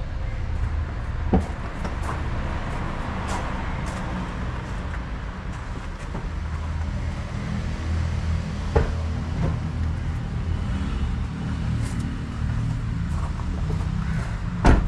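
Vehicle engine idling steadily, a low even rumble, with a few short knocks about a second in, near the middle and at the very end.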